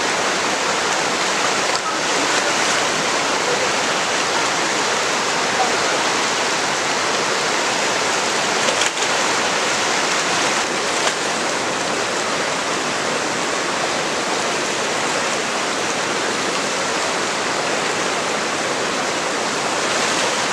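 Fast-flowing Himalayan mountain river rushing steadily, a loud, even noise of water.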